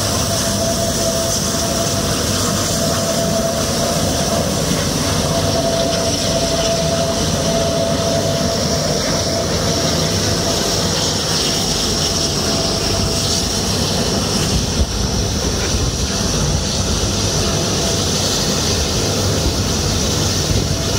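Convair 580's twin Allison turboprop engines running as the aircraft taxis: a loud, steady high whine over a low rumble. A mid-pitched tone is strong at first and fades about halfway through.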